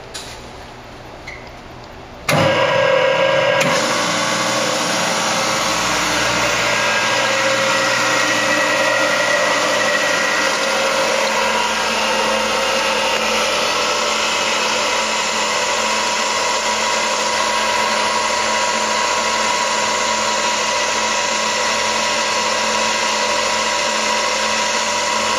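Rapids Marion Model 6021 mixer starting up about two seconds in, its electric drive and agitator then running steadily in the empty trough with a constant whirring whine.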